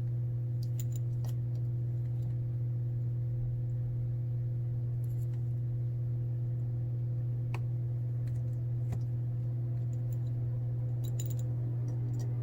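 A steady low electrical-sounding hum runs throughout, with faint, scattered small clicks and ticks of metal tools working on a phone as the last few parts go back in.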